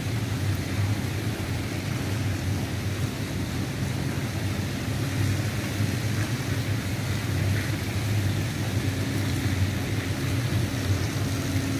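Ship's machinery running with a steady low drone over a background hiss.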